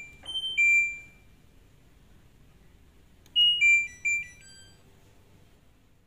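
LG WD-M1070D6 front-loading washing machine sounding its error alarm, a two-note electronic beep, a short high note then a lower, longer one, for the LE error code, which the manual gives as motor overload. About three seconds in comes a click followed by a quick run of several short electronic beeps.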